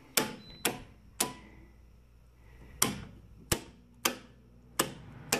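Square D circuit breakers being snapped on one after another in a breaker panel: about eight sharp clicks, irregularly spaced, with a pause of over a second after the third. The house circuits are being switched back on.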